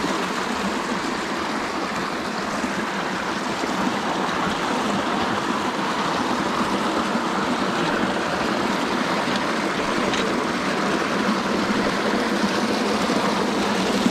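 Rushing water of a mountain stream: a steady, even flow.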